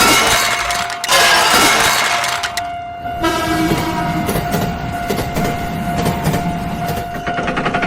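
Cartoon railway sound effects: a train running with horn-like tones over a steady held tone, with a loud rushing noise from about one to two and a half seconds in.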